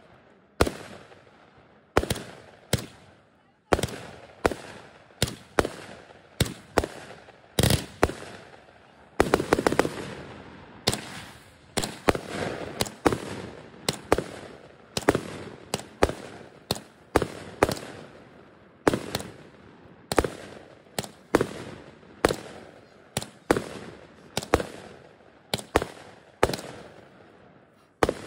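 Multi-shot aerial firework cake firing: a steady run of sharp bangs, about one or two a second, each trailing off in an echo. About nine seconds in there is a burst of rapid crackling.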